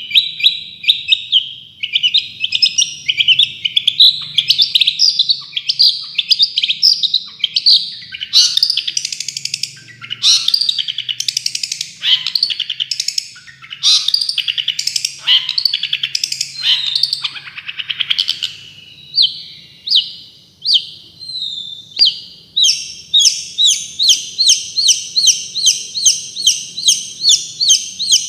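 Long-tailed shrike (cendet) song in the fast 'tembakan' style: loud, quick runs of sharp, varied chattering notes. In the last few seconds these settle into an even series of about three clipped notes a second.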